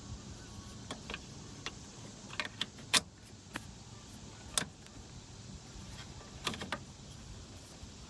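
Scattered sharp clicks and knocks, the loudest about three seconds in and a small cluster near the end, over a steady hiss of outdoor background noise.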